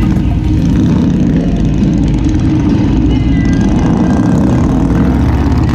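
A motor vehicle's engine running on the road, with a loud, steady low rumble.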